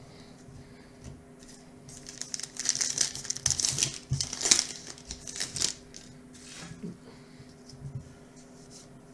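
A baseball card pack wrapper being torn open and crinkled, a loud crackling that runs from a little over two seconds in to nearly six seconds. Softer rustles and clicks of trading cards being handled come before and after it.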